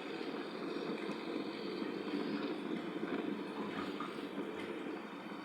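Intercity bus running at speed: a steady rumble of engine and road noise.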